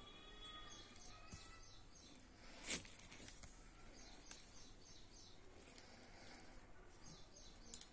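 Quiet knife work on a large ash gourd, the blade cutting into the hard rind, with one sharp knock about two and a half seconds in and a smaller one a little after four seconds. Faint chirps in the background.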